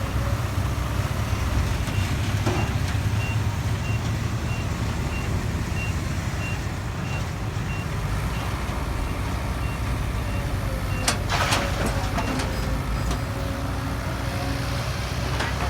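Heavy diesel engine of excavator or dump truck running steadily, with a high back-up alarm beeping about two and a half times a second that stops near the end. A few sharp metal clanks come about eleven seconds in.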